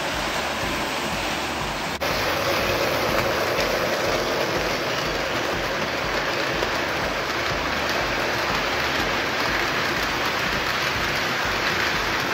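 O gauge model train rolling along three-rail track: a steady rushing rumble of metal wheels on the rails. It steps up slightly louder about two seconds in.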